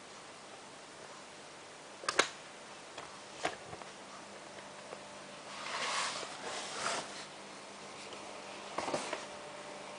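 Hotpoint Ultima WT960 washing machine during its heating phase, heating the water to 30 °C: a faint steady hum with a few sharp clicks, and a brief swishing swell about six seconds in.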